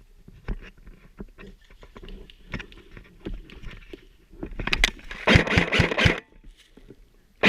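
Airsoft electric rifle firing on full auto: two loud rattling bursts of about a second each in the second half, the gearbox cycling in rapid even strokes. Before them there are faint scattered clicks and rustling.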